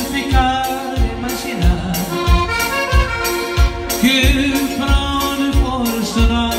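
Instrumental break of upbeat Portuguese popular dance music: an Elkavox electronic button accordion playing the melody over a steady drum beat, with a strong beat about every two-thirds of a second.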